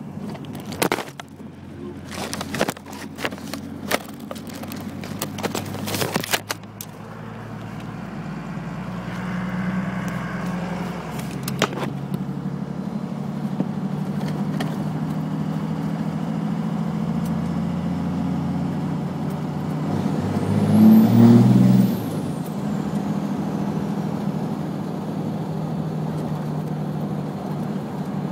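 A 1st-gen Cummins 5.9 diesel in a moving truck, heard with the window down. There are sharp clicks and knocks in the first several seconds, then a steady drone. About twenty seconds in, the engine briefly gets louder and the HX35 turbo, running without its silencer ring, gives a very high whistle that rises and falls away.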